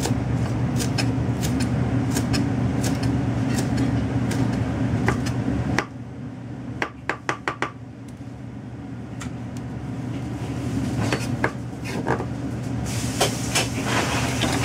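Scattered sharp knocks and clicks of kitchen utensils during vegetable preparation, including a quick run of four about seven seconds in. Under them is a steady low mechanical hum that drops away suddenly about six seconds in and slowly comes back.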